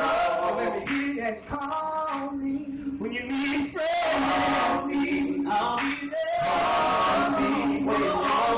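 Male vocal group singing together in harmony, with several voices holding and moving between chords.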